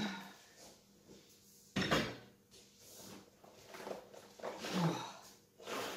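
Clunks and scrapes of things being handled on a kitchen counter, the loudest a sharp knock about two seconds in, with a short falling sound near five seconds.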